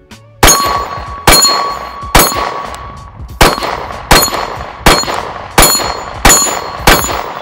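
Glock 43X Gen 5 9mm pistol fired nine times in steady succession, less than a second between shots apart from one longer pause near the middle. Each shot is followed by the ringing clang of steel targets being hit downrange.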